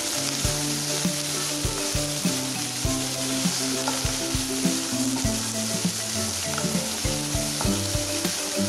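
Sliced onions with green chillies and curry leaves sizzling in hot oil in a nonstick pan as they are sautéed, stirred with a wooden spatula. The spatula knocks against the pan frequently and irregularly.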